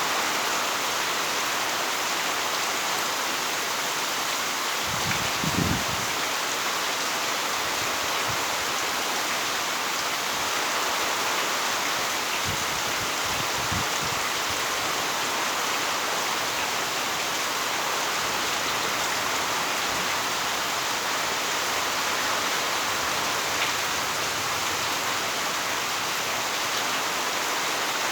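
Heavy rain falling steadily, a dense even hiss, with a few faint low thumps about five seconds in and again around thirteen seconds.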